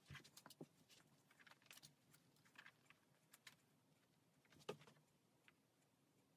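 Near silence with faint, scattered clicks and rustles of hands handling a lace wig on a canvas block head. One sharper click comes near the end.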